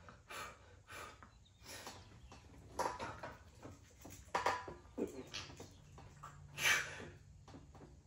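A man's short, forceful breaths and grunts of effort, coming irregularly about once a second, as he strains through heavy incline bench press reps.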